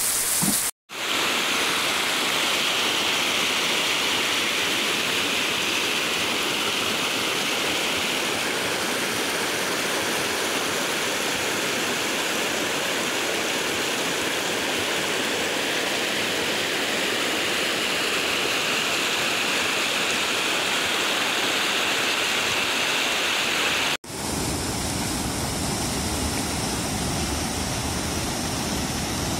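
Steady rush of fast-flowing floodwater, a swollen stream churning over rocks and grass. It breaks off abruptly twice, about a second in and near the end.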